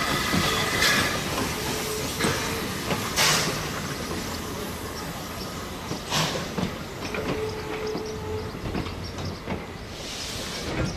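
Vintage passenger carriages of a steam train rolling slowly past, wheels clicking and knocking over the rail joints over a steady rumble, gradually fading as the train moves away.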